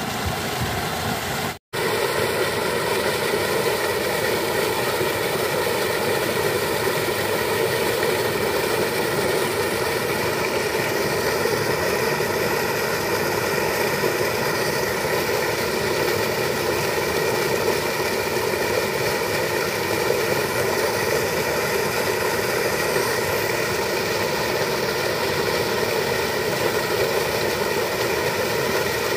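Sand-and-water slurry gushing steadily from the outlet of a sand-pumping discharge pipe into a flooded plot, with a steady, even-pitched drone running under the rush. The sound cuts out for an instant about two seconds in.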